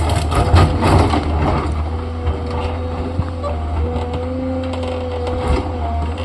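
TATA excavator's diesel engine running steadily under a faint whine. Crunching and clattering of rock and stone fill the first second or two, then thin to a few knocks.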